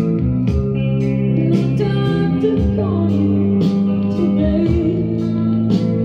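Music playing from a vinyl record on an ION turntable, amplified by a Marantz integrated amplifier and heard through loudspeakers: guitar-led, over a steady beat of about two strikes a second.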